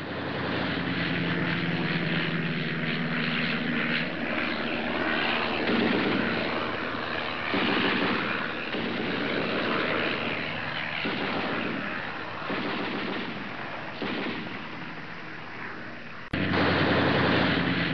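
Propeller aircraft engines droning, rising and falling in swells as planes pass, used as a war-film sound effect. The sound breaks off abruptly near the end and comes back louder.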